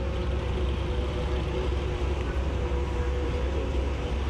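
Passenger ship's engines running: a steady low rumble with a steady droning hum above it.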